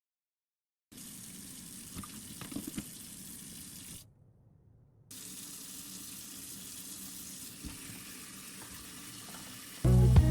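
Water running from a tap into a sink, with a few light knocks in the first half. It cuts out for about a second in the middle and then resumes. Music comes in at the very end.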